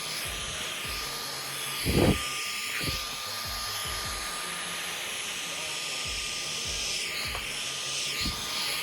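Household vacuum cleaner running steadily with a high motor whine. A loud knock about two seconds in, likely the cleaner head bumping something.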